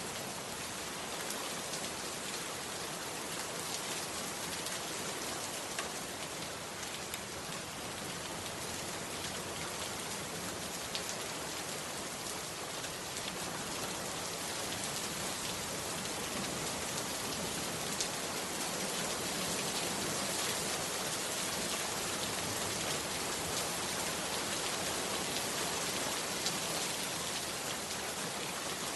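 Steady heavy rain, an even hiss with scattered individual drops ticking.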